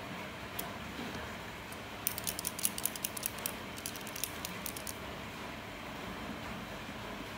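A paint marker being shaken, its mixing ball rattling in quick irregular clicks for about three seconds, starting about two seconds in, over a steady low hiss.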